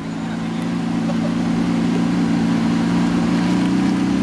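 Lamborghini Aventador SVJ's V12 engine running steadily at low revs as the car creeps away, growing a little louder over the first second.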